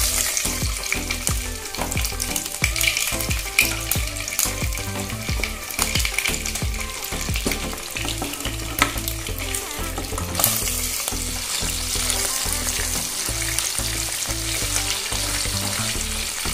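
Pieces of turmeric-marinated katla fish head frying in hot mustard oil in a pan: a steady sizzle with crackling spatters. The sizzling grows louder about ten seconds in.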